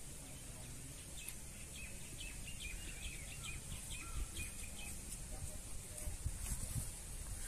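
A bird calling a quick run of short chirps, about four a second, for a few seconds, over a low steady rumble of outdoor background noise.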